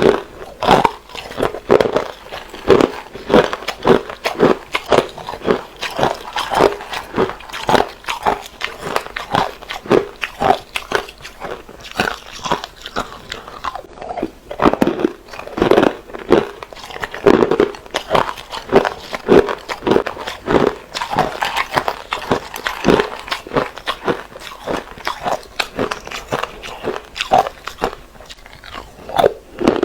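Hard ice being bitten and chewed close to the microphone, a rapid run of sharp crunches, several a second, steady throughout.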